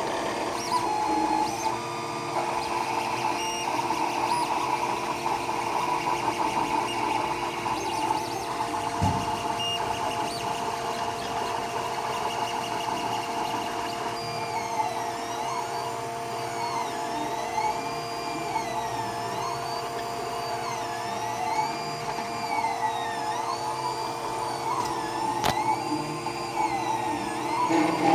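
3D printer running, its stepper motors giving off several steady whining tones. From about halfway in, a whine that rises and falls repeats about every second and a half as the print head travels back and forth. The owner takes these printer noises for a fault.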